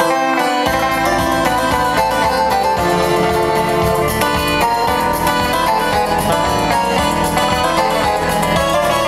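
Music: a Fender Traveler guitar playing the instrumental opening of a song, with deeper accompaniment filling in under a second in.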